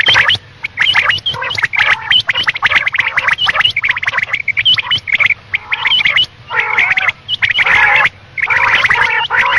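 Quail calls played as a hunting lure recording, meant as female quail (batair) calling. Short, sharp notes are repeated rapidly and overlap, broken by brief gaps, and lower, fuller sounds join in over the last few seconds.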